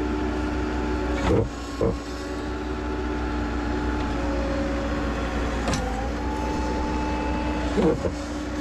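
Bobcat skid steer's diesel engine running steadily, with a few brief sharp sounds over it.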